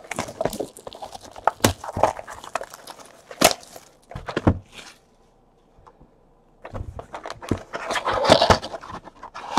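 Cardboard trading-card hobby boxes being handled on a table: sharp knocks and clicks as they are picked up and set down, a short pause, then a couple of seconds of cardboard scraping and rustling.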